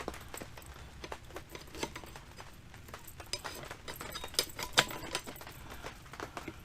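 Irregular small metal clicks and clinks as new brake pads are worked into the BMW K1200R's rear brake caliper, with the sharpest clicks a little over four seconds in.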